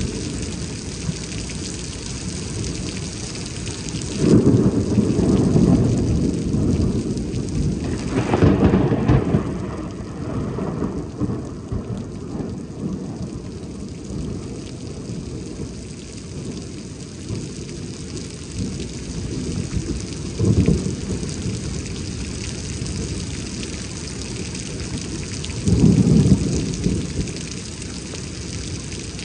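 Rain falling steadily, with four rolls of thunder: a long rumble about four seconds in, another around nine seconds, a short one around twenty seconds, and a loud rumble near the end.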